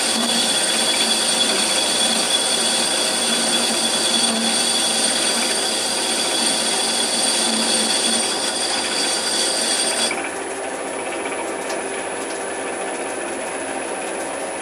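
Raglan 5-inch lathe screwcutting a thread in a rusty steel tube: the cutting tool gives a steady high-pitched squeal over the running lathe, which stops about ten seconds in when the cut ends, leaving the lathe's motor and gearing running.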